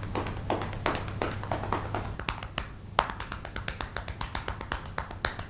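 A person making a quick, uneven run of sharp percussive clicks and taps, several a second, over a low steady hum.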